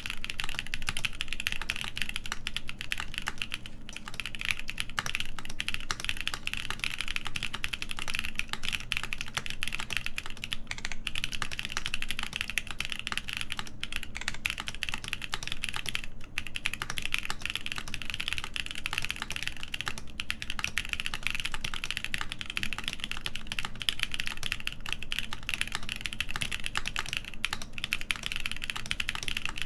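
Continuous fast typing on a mechanical keyboard with stock factory-lubed BSUN X switches in a full polycarbonate plate, under GMK doubleshot keycaps: a dense, even stream of key clacks.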